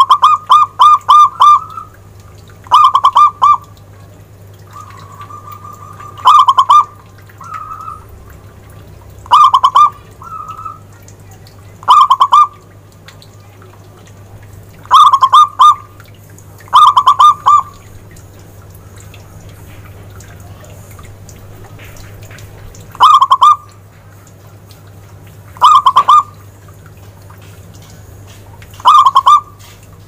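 Zebra dove (perkutut) cooing: about ten loud, short phrases of rapid staccato coos, each about half a second to a second and a half long, repeated every two to six seconds. A steady low hum runs underneath.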